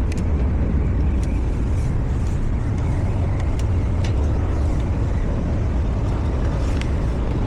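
Rooftop packaged HVAC unit running with only its indoor blower fan on, a steady low rumble, while the compressors stay off despite the call for cooling.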